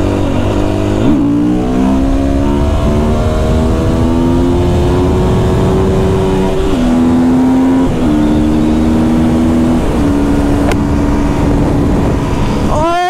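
Husqvarna FE 350 four-stroke enduro bike's engine pulling hard in third gear for a clutch-up wheelie. The revs jump about a second in, then the engine note climbs slowly. It steps down and holds steady twice, and there is a quick rev up and back down right at the end.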